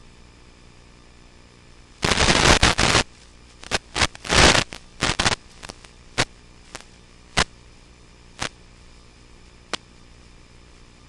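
Steady hiss of an FPV video feed's audio, broken by loud bursts of crackling and sharp clicks. The crackling is heaviest for about a second starting two seconds in, then comes in shorter, sparser clicks that die away.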